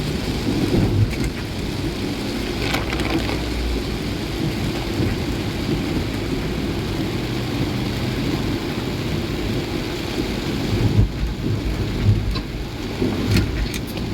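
Heavy rain with the steady low rumble of a vehicle driving on a wet road, and scattered sharp taps, several of them near the end.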